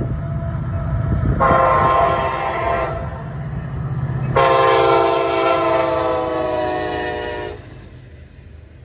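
Locomotive air horn sounding two chord blasts over the rumble of the passing train, the first about a second and a half long and the second about three seconds long and sinking slightly in pitch. After the horn stops, the rumble of the train fades.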